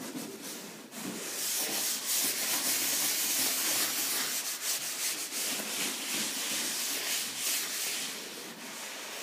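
Green scouring pad scrubbed back and forth over a wet hardwood floor soaked in floor stripper, lifting old paint. The rubbing grows louder about a second in and eases off near the end.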